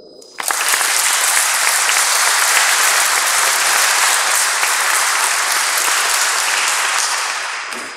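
An audience applauding. The clapping breaks out about half a second in, holds steady, and dies away near the end.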